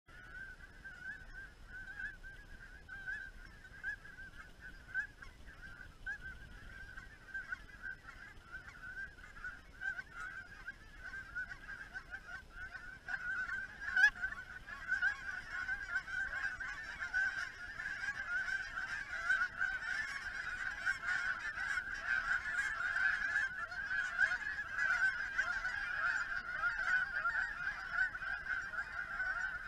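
A flock of geese calling in a continuous, overlapping chorus, growing louder about halfway through as more birds come in overhead. One sharp click stands out midway.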